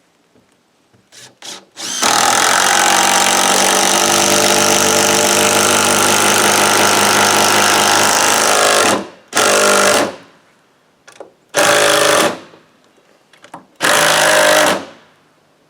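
Electric power drill running: one long run of about seven seconds, then three short bursts.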